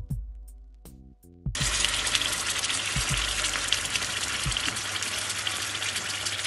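Music plays briefly. From about a second and a half in, prawns al pil pil sizzle and crackle steadily in hot oil in the pan.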